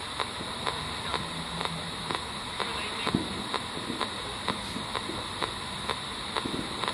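P-SB7 Spirit Box sweeping the AM radio band: a steady hiss of static broken by a sharp click about twice a second as it jumps from frequency to frequency at its 500 ms sweep rate.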